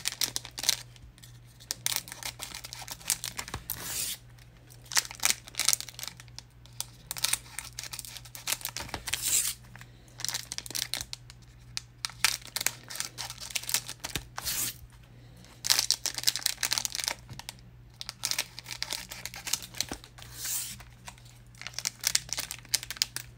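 Scissors snipping open foil-wrapped Donruss basketball card packs, with the wrappers crinkling and rustling in many short, irregular crackles. A faint steady low hum runs underneath.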